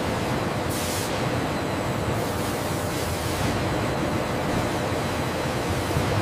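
Paper-rewinding machinery running: a steady, even mechanical noise with a faint constant hum.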